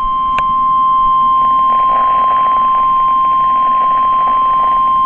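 Weather radio's 1050 Hz warning alarm tone: one loud, unbroken, steady beep from the radio's speaker, the alert that comes before a warning message is read. There is a brief click about half a second in.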